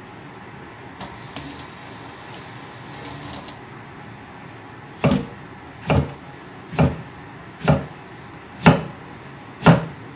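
Knife slicing ginger on a thick round wooden chopping block: about halfway in, six firm knocks of the blade striking the wood, about one a second, after a few faint light clicks.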